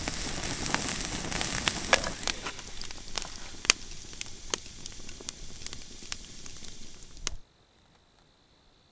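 Steaks sizzling on a grill grate over an open wood campfire, with the fire crackling in sharp pops. The sizzle thins after about two seconds and cuts off suddenly near the end, leaving only a faint steady high tone.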